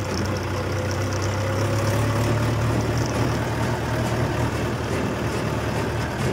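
Mahindra tractor's diesel engine running steadily with a low hum as the tractor drives along a dirt track.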